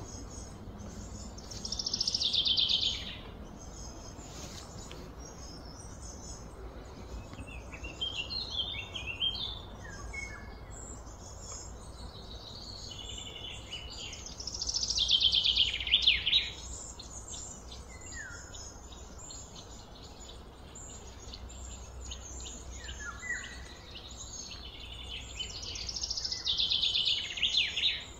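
Wild birds calling: three loud, buzzy phrases of a second or two that fall in pitch, about twelve seconds apart, with softer chirps between them, over a steady low outdoor rumble.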